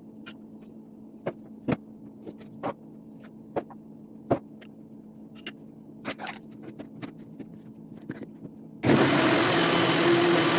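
A few light clicks and knocks, then about 9 seconds in a countertop blender switches on and runs loudly and steadily, blending cornmeal cake batter.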